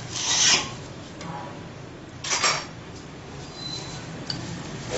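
Plastic cling film crackling as it is pulled and pressed over a glass bowl, in two short bursts: one right at the start and one a little after two seconds in.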